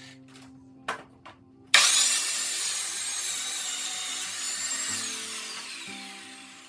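A few sharp knocks, then an electric power saw cutting wood: a sudden loud whining cut about two seconds in that fades away as the blade spins down, with pitch falling near the end.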